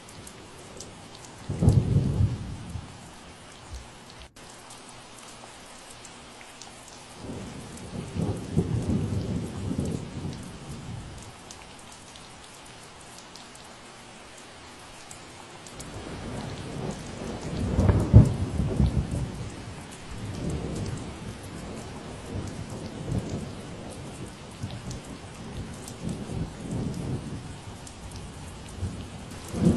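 Steady rain falling, with repeated low rumbling swells rising out of it: a strong one about 2 seconds in, a longer one around 8 to 10 seconds, the loudest about 18 seconds in, and weaker ones after.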